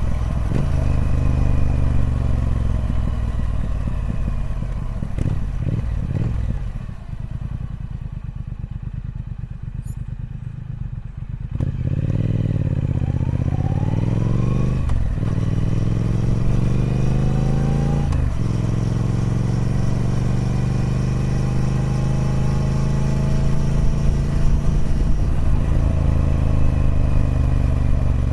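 Triumph Speed Twin 1200's 1200cc parallel-twin engine on its stock exhaust while riding. The revs fall to a low, pulsing beat for a few seconds, then climb sharply twice, each climb broken by a gear change, and settle into a steady cruise with slowly rising revs.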